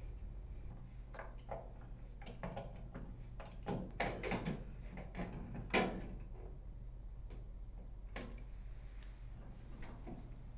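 Plastic dryer feet being threaded into a dryer's sheet-metal base by hand and with slip-joint pliers: a run of short scrapes and clicks, the loudest about four and six seconds in, over a faint low hum.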